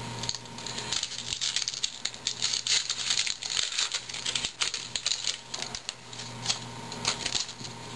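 A 2011 Topps baseball card pack's wrapper being torn open and crumpled by hand, in a run of quick crinkling and crackling.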